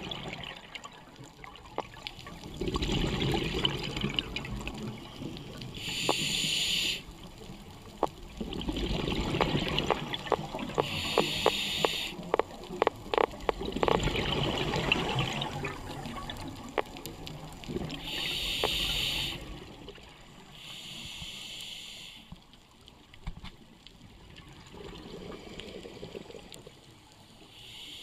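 Scuba regulator breathing underwater: short hissing inhalations alternate with longer bursts of bubbling exhalations, a few seconds apart. A run of sharp clicks falls around the middle.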